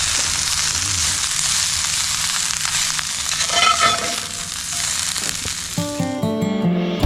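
Stir-fry sizzling steadily as it cooks, with a brief scrape of stirring about halfway through. Acoustic guitar music comes in near the end.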